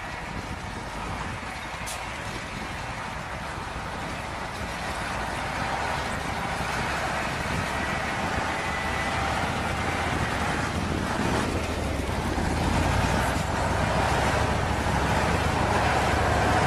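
Ural-5920 tracked snow-and-swamp vehicle driving over snow: its diesel engine running and its tracks moving, growing steadily louder as it comes closer.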